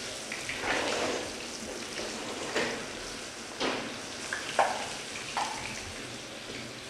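Fish frying in hot oil: a steady sizzle, with a few short knocks of a utensil against the pan.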